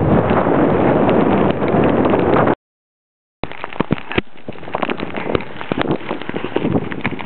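Heavy wind buffeting on the microphone while moving, cutting off abruptly about two and a half seconds in. After a short dead gap, a quieter run of irregular crackles and clicks.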